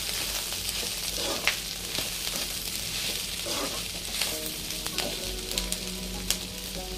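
Slit ivy gourd (tindora) pieces and green chillies frying in oil in a non-stick kadai, sizzling steadily while a metal slotted spatula stirs them, with a few sharp clicks of the spatula against the pan. This is the last stage of frying, once the raw smell has cooked off.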